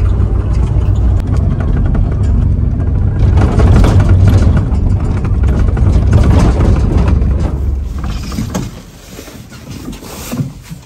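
Passenger van heard from inside the cabin: a steady low engine and road rumble, with a louder rush of wind and road noise in the middle. The rumble dies away about eight seconds in, leaving quieter shuffling and knocks.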